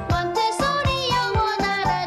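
Bouncy children's music with a quick steady beat of about four pulses a second under a bright, bending melody.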